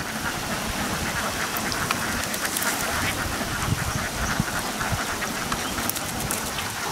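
A flock of ducks quacking, many calls overlapping into a steady din.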